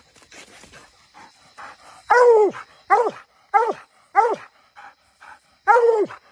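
Bluetick coonhound barking treed, the call that marks a raccoon up the tree. After a quieter first two seconds come five loud barks, each dropping in pitch.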